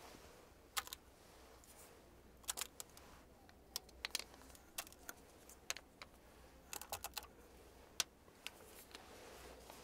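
Black plastic Merzy lipstick cases clicking and tapping as they are picked up, handled and set down: a scattering of short, sharp clicks at irregular intervals, some in quick clusters.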